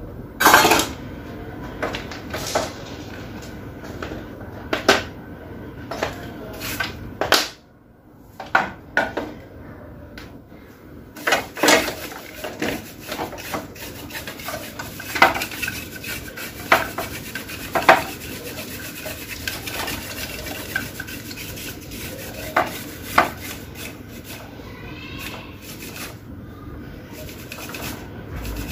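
Irregular clicks, taps and clatter of small tools and hard parts being picked up, set down and handled on a workbench, with a steady low background noise.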